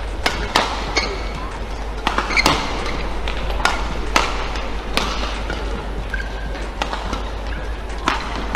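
Badminton rally: rackets strike the shuttlecock in sharp cracks, about ten of them at uneven gaps of half a second to a second, with brief squeaks of court shoes, over a steady arena background.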